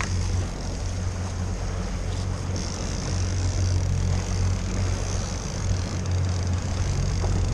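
Boat engine running steadily, a low drone, with a steady hiss of wind and water over it.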